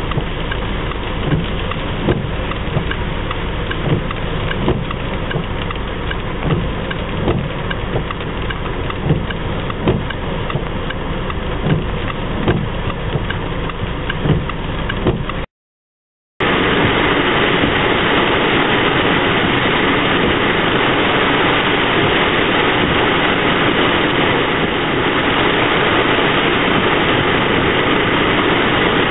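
Inside a car waiting in the rain: steady rain and traffic noise with a sharp tick repeating about one and a half times a second. After a short break about halfway, a dense, steady hiss of heavy rain beating on the car.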